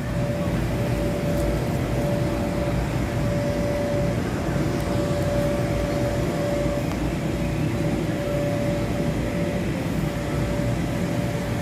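Steady drone of the electric air blowers that keep inflatable bounce houses and slides inflated, with a constant mid-pitched hum running through it.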